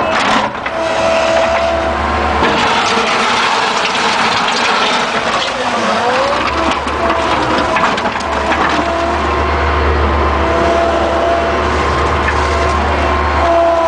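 Bobcat skid-steer loader running its backhoe attachment: a steady engine with a hydraulic whine that shifts pitch as the controls are worked, over irregular knocks and scrapes. The deep engine note fades about two seconds in and returns near six seconds.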